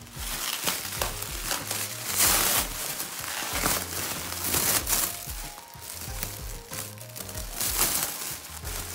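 Plastic bubble wrap crinkling and rustling as hands grip and turn a wrapped package, in irregular louder surges, over background music with a steady low beat.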